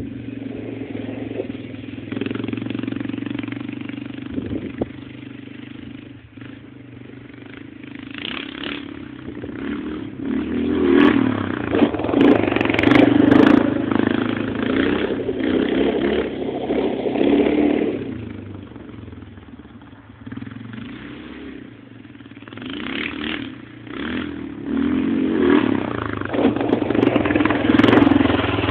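AEON Crossland 300 ATV engine running, revving up for several seconds about a third of the way in and again near the end, and easing back between, with a few sharp clicks while it revs.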